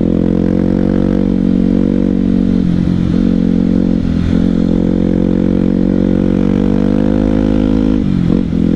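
Honda XR 250 Tornado's single-cylinder four-stroke engine running under steady throttle while riding, with brief dips in pitch about three and four seconds in and a dip and recovery near the end.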